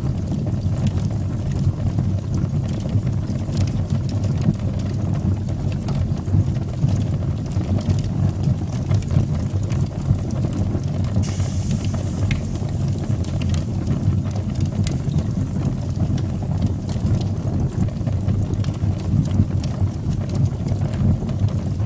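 Fire burning in a fireplace: a steady low rumble of the flames with scattered sharp crackles and pops, and a brief hiss about halfway through.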